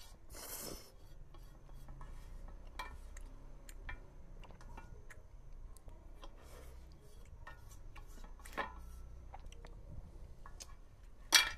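Close-up eating sounds: chewing of instant ramen noodles with a scattering of small clicks and scrapes of a utensil against the container, a brief noisy burst near the start and a sharper click near the end.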